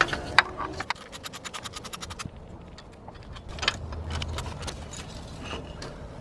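Ratchet wrench clicking rapidly and evenly for about a second and a half as a 13 mm belt-tensioner bolt is backed out. Scattered metallic clicks and a sharp knock of tools on metal follow.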